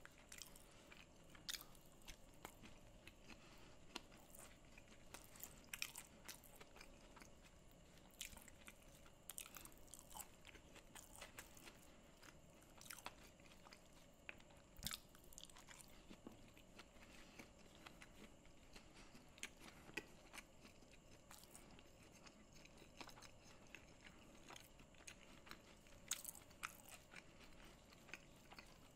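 Faint close-miked eating: irregular soft crunches and clicks of chewing, with fingers gathering rice and cashew pieces off a banana leaf.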